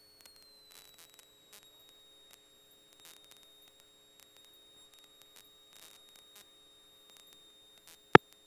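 Faint steady electrical whine and hum on the aircraft's radio and intercom audio. The high tone dips slightly in pitch about a second in and then holds steady. Scattered faint clicks run through it, and one sharp, loud click comes near the end.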